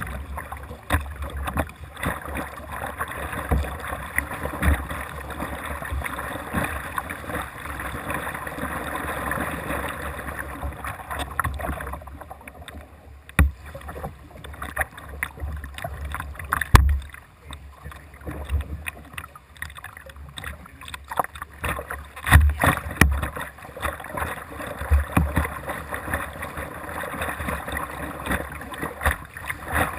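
Paddle strokes splashing and water washing along the hull of a Jackson Dynamic Duo whitewater kayak, heard from a camera on its bow, with irregular low thumps and a few sharp knocks.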